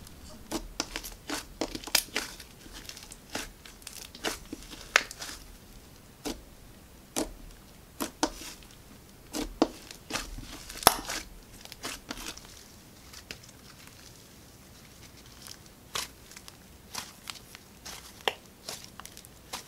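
Pink floam slime being pressed, folded and stretched by hand, making irregular sticky clicks and crackles, thinning out for a while past the middle.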